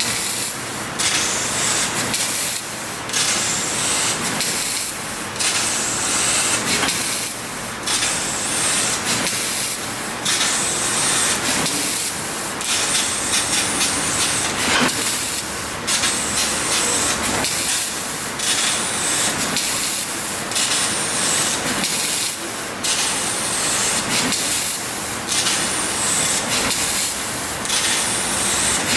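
6 kW fiber laser cutting machine cutting carbon steel: a loud continuous hiss of the cutting jet, broken by brief gaps about every one to two seconds.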